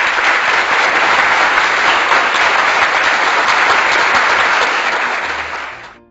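Crowd applauding: dense, steady clapping that fades out near the end.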